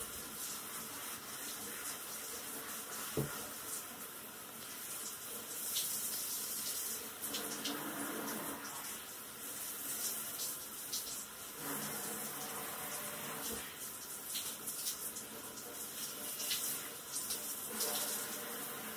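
Handheld shower head spraying water onto a Shetland sheepdog's long, soapy double coat, rinsing out the shampoo, with a steady hiss of spray and splashing. A single short knock about three seconds in.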